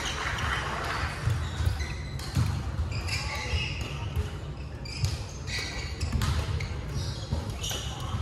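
Badminton play in a large sports hall: sneakers squeaking on the wooden court floor, with sharp hits of rackets on shuttlecocks and footfalls, over a steady low rumble.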